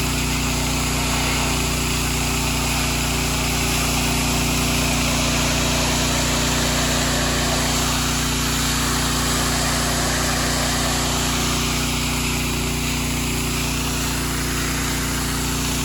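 Gas-engine pressure washer running steadily, with the hiss of the high-pressure water spray on concrete rising and falling over it.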